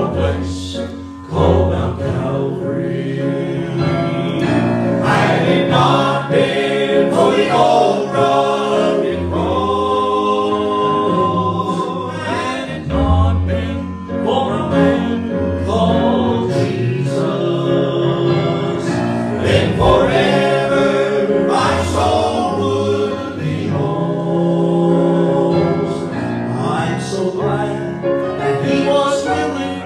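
Southern gospel male vocal group singing together in harmony, with instrumental accompaniment underneath.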